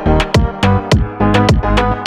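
Electronic background music with a steady, fast drum beat, bass and synth chords.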